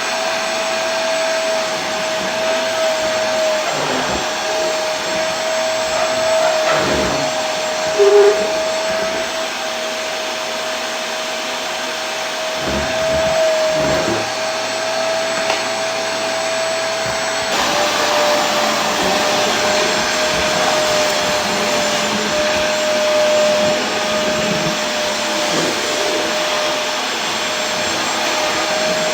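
Vacuum cleaner motor running steadily, a constant rushing noise with a steady whine on top. About eight seconds in there is a brief louder tone, and a little past halfway the whine steps slightly lower in pitch.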